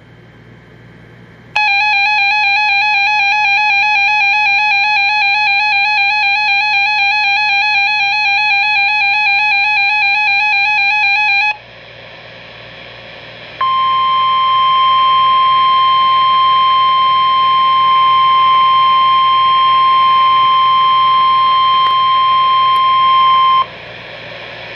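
Weather-radio emergency alert tones. About ten seconds of a wavering, buzzy alert tone comes first, then a short gap, then the steady 1050 Hz NOAA Weather Radio warning alarm tone for about ten seconds. The tones announce the severe thunderstorm watch that follows.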